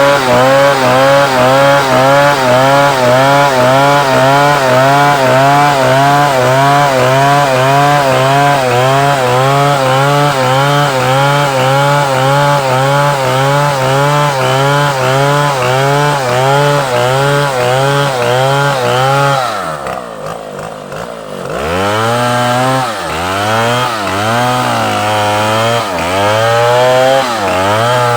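Chainsaw running at high speed in a cut through timber, its engine pitch wavering up and down about twice a second. About twenty seconds in it drops to idle, then revs back up in a few bursts and returns to cutting speed.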